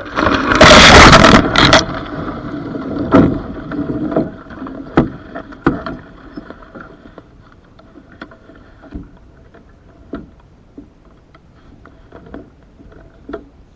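Leafy branches and twigs scraping and rustling hard against the canoe and the camera for the first two seconds or so. Then come scattered sharp snaps and knocks of twigs and branches against the hull, getting quieter and sparser.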